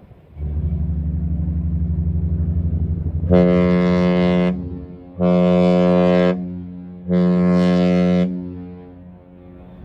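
Cruise ship horns: a deep horn sounds one long blast of about four seconds, and near its end a higher horn gives three short blasts about a second apart. A long blast followed by three short ones is the usual signal of a ship leaving its berth and going astern.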